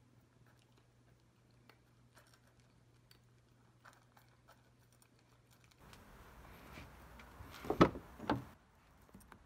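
Cats faintly crunching dry kibble from bowls, small clicks scattered through it over a low steady hum. About six seconds in it changes to louder rustling and two thumps about half a second apart.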